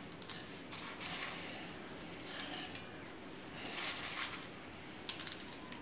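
Faint soft rustling, several times about a second apart, as crisp gathi sev is picked up and sprinkled by hand over the curry.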